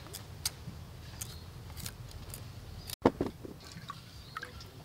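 Hand peeler scraping the skin off a raw pumpkin wedge in short, crisp strokes. About three seconds in, a single loud thump.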